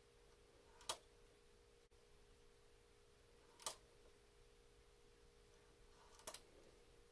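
Three short, sharp metallic clicks a few seconds apart as loops are hooked onto the needles of a Brother standard-gauge knitting machine with a metal hand tool, over a faint steady hum.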